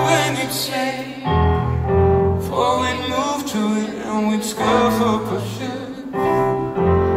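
Live band music: a male lead voice singing over sustained keyboard chords and low bass notes.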